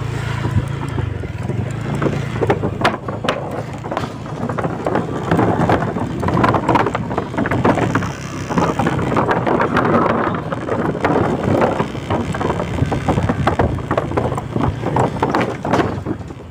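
A small engine running steadily while crossing a wooden plank bridge, with irregular clattering knocks from the boards and wind buffeting the microphone.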